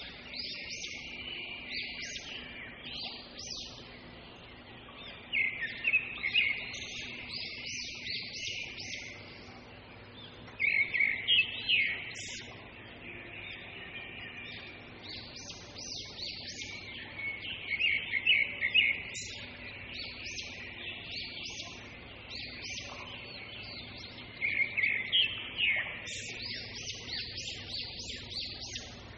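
Birds chirping in repeated short phrases every few seconds, with a continuous twittering between them.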